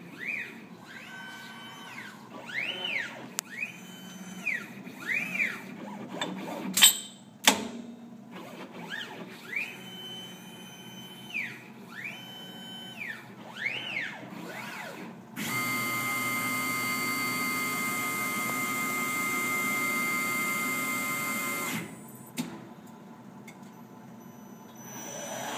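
ST Robotics R17 robot arm moving through a series of motions, its stepper motors whining. Each move is a whine that rises, holds and falls away, and a couple of sharp clacks come about seven seconds in. Later there is a steady hiss with a high tone for about six seconds, and near the end the sound starts to swell.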